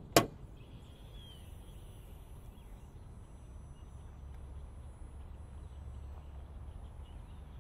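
A single sharp clack of the hood latch at the very start as the hood of the Kia Niro is worked by hand, followed by a steady low rumble with a faint bird chirp about a second in.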